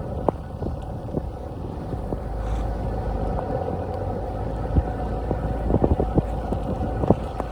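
Car driving: a steady engine and road noise, with scattered knocks and clicks that come more often near the end.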